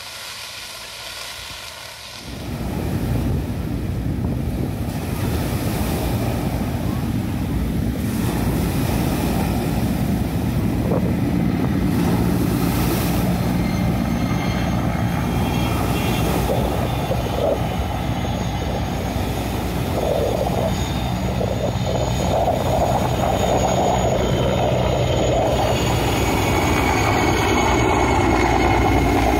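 Sikorsky S-64 Skycrane twin-turbine heavy-lift helicopter flying, its rotor and engine noise steady and loud. The sound comes in about two seconds in, and a high turbine whine joins about halfway through.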